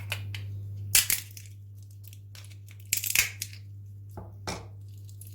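Walnut shells being cracked open, with sharp cracks about a second in and again around three seconds in, and a few lighter snaps after.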